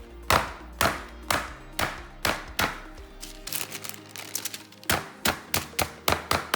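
Chicken breast being pounded flat under parchment paper: a steady run of sharp thuds about two a second, quickening near the end, with background music.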